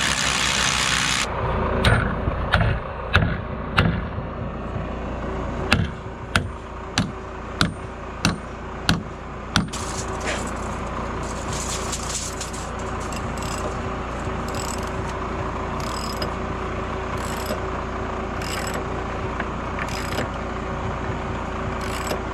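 SDS hammer drill boring into the concrete slab, stopping abruptly about a second in. It is followed by a run of about a dozen sharp knocks, roughly one every two-thirds of a second, ending about ten seconds in, then a steady low hum.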